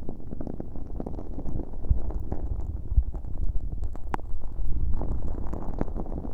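An earpick working sticky, fairly firm slime mixed with lots of fine hologram glitter directly against a bare microphone with no plastic wrap. It makes a dense, continuous sticky crackling and squelching over a low rumble, with a few sharper clicks.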